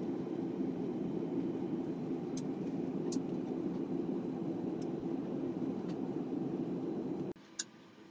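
Steady low cabin noise of a jet airliner in flight, with a few faint ticks over it; it drops away suddenly about seven seconds in.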